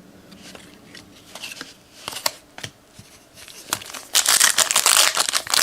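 Trading cards being slid and handled with light clicks, then about four seconds in a loud crinkling as a foil card-pack wrapper is torn open.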